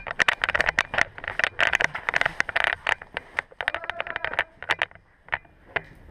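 Airsoft guns firing in an indoor arena: a quick, irregular run of sharp clicks and cracks, likely shots and BBs striking wooden walls, thinning to a few scattered cracks after about four and a half seconds.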